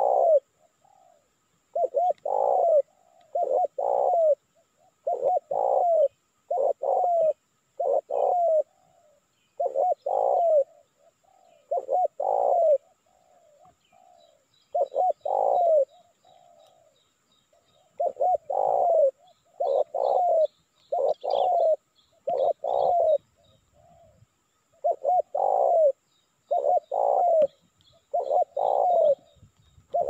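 Spotted dove (tekukur) cooing, one phrase about every one to two seconds with a few short pauses. Faint high chirps of small birds come in during the second half.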